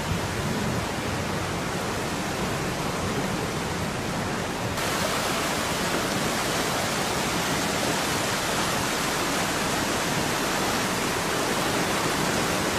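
Muddy floodwater rushing in a swollen river past a bridge, a steady noisy rush that gets louder and brighter about five seconds in.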